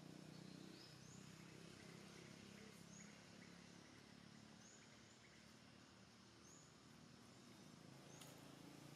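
Near silence: faint outdoor ambience, with a short high chirp repeating about every second and a half.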